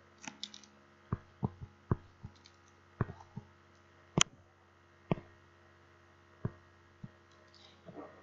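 Scattered light clicks and taps, about fifteen at uneven intervals and loudest about four seconds in, over a steady low electrical hum.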